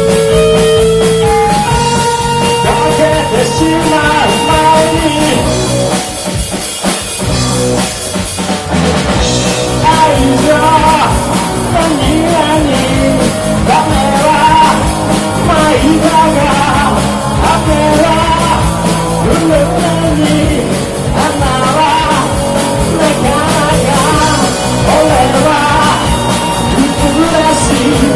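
Rock band playing live, drum kit and guitars with a singer's voice over them. The bass and drums thin out briefly about six seconds in, then the full band comes back with the vocal line.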